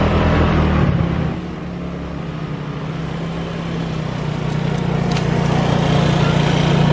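Moped engines running: close up for about the first second, then two mopeds approaching with their engine hum growing steadily louder.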